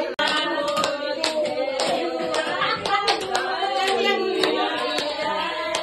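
A group of voices singing together, with hands clapping along at about two to three claps a second, in the way of a birthday song sung around the cake.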